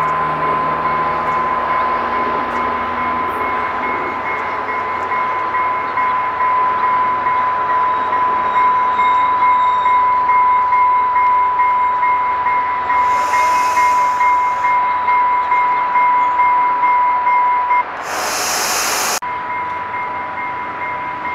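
A train rolling past, with a steady rhythmic clatter and a constant high tone running through it. A brief loud hiss comes near the end.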